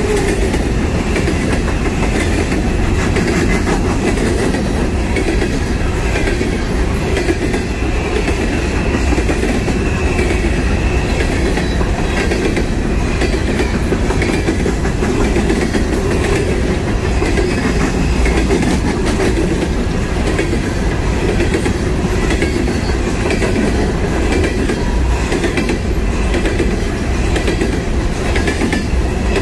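Freight train cars rolling past, a loud, steady run of steel wheels on the rails with many small clicks. The sound holds level throughout.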